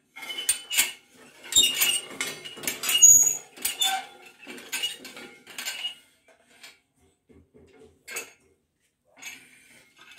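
Twisted square steel bar clinking and clanking against a hand scroll-bending jig as it is bent into a C-scroll: a dense run of sharp metallic clinks for about six seconds, then a few scattered clinks.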